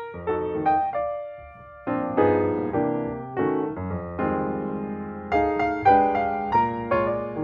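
Background piano music: gentle chords and single notes, each struck and fading.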